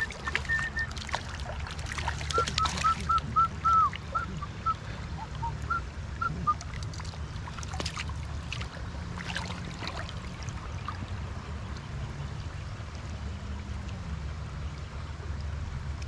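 Stream water running steadily, with a bird calling in a quick series of short, high notes over the first several seconds. Several sharp splashes or knocks stand out in the first few seconds.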